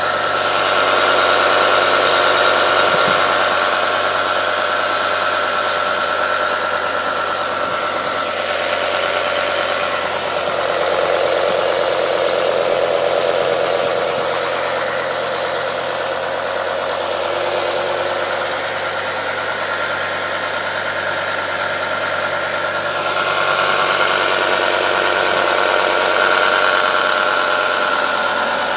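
BMW E60 M5's V10 engine idling cold, a steady running sound that swells and eases slightly a few times. At this stage of the cold idle the owner hears next to none of the diesel-like clatter he suspects comes from the VANOS units.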